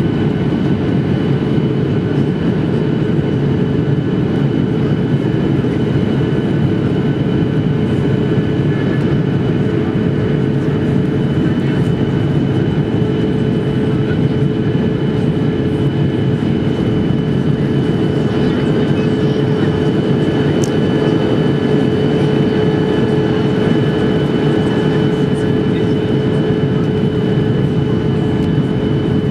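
Steady cabin noise of a Boeing 737-800 on descent: the drone of its CFM56-7B turbofan engines and rushing airflow, heard inside the cabin over the wing. A steady low hum runs under it, with a faint high whine on top.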